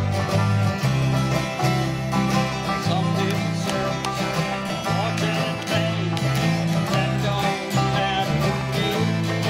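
Acoustic guitars and a five-string banjo playing a bluegrass-style tune together, over a bass line whose low notes change about once a second.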